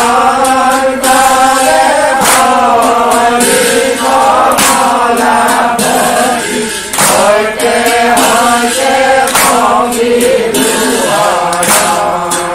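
A group of men chanting an Assamese devotional naam together in long, held, slowly bending lines, with sharp percussive strikes about every half second to a second.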